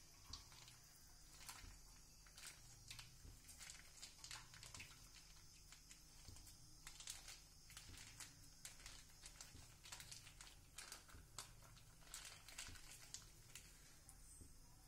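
Faint, irregular clicks and crinkles as cooking oil is squeezed from a plastic pouch and pours into a hot metal kadai.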